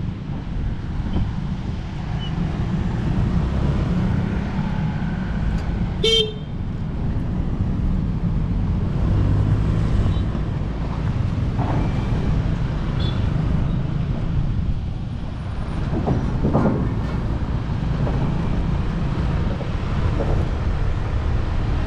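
Motorcycle riding along a road: a steady low rumble of engine and wind, with a short horn toot about six seconds in.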